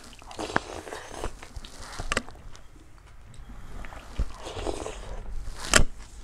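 Chewing and crunching while eating crispy rice pancake (banh xeo), with scattered sharp clicks, the loudest near the end.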